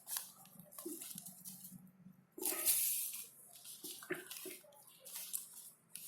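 Rustling and handling noise from a soft microphone pouch being opened and its contents taken out, in about six irregular bursts of hiss.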